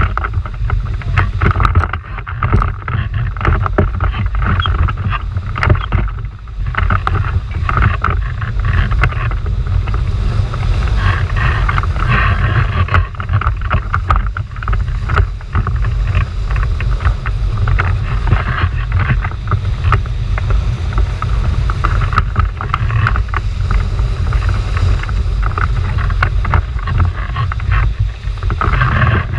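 Whitewater churning and splashing loudly in a river hole around a cataraft surfing it, many small crashes of water over a constant heavy low rumble.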